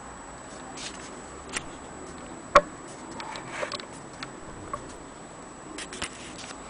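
Scattered, irregular clicks and knocks from a vintage gramophone motor being handled, with the loudest knock about two and a half seconds in.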